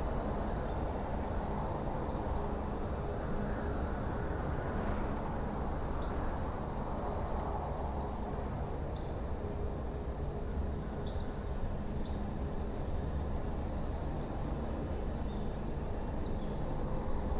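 Steady background noise with a low rumble and faint, short high chirps every second or two.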